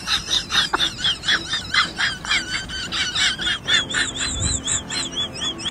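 A dog whining in quick, high-pitched squeals, about four or five a second, turning into a wavering, warbling whine in the last couple of seconds.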